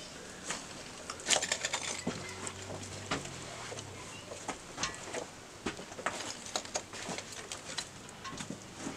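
Irregular light clicks and scuffs of footsteps on a gritty floor, over a faint low hum that fades out about three and a half seconds in.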